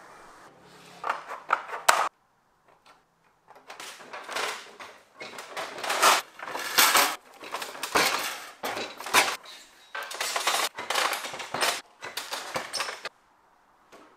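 Sheet metal clattering and rattling in repeated irregular bursts as a coated metal sheet is handled and folded on a manual sheet-metal bending brake.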